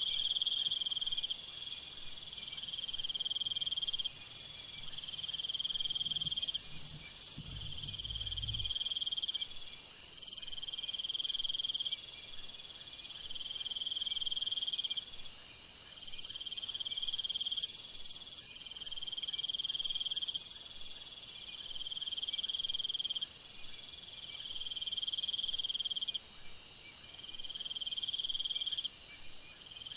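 Night jungle ambience: a dense, shrill chorus of crickets and other insects. One insect calls in repeated trills about a second long with short gaps between them. A faint low rumble underneath stops about a third of the way through.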